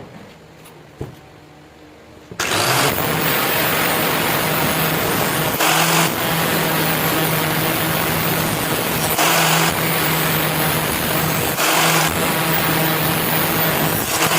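Electric grinder switching on about two seconds in and running steadily under load, with the hiss swelling every few seconds as it bites into the steel blade.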